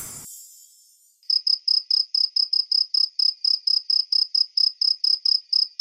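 Cricket chirping: a steady, even run of short, high pulses, about five a second, starting about a second in.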